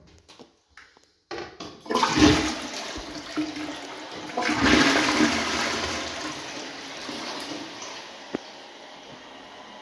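A newly fitted close-coupled toilet is flushed. Water rushes into the bowl, building about two seconds in and peaking twice, then fades to a steadier, quieter hiss as the cistern refills.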